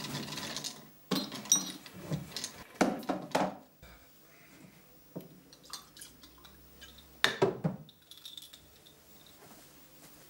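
Glass tumblers clinking and knocking as ice cubes are dropped in and a drink is poured over them, several sharp clinks spread across a few seconds.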